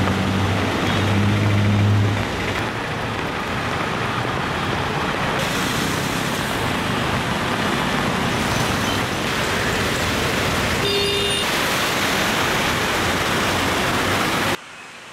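Heavy rain and traffic on a flooded road: a steady hiss of rain and water with vehicles driving through it, and an engine hum in the first two seconds. A short high tone sounds about eleven seconds in, and the sound drops sharply near the end.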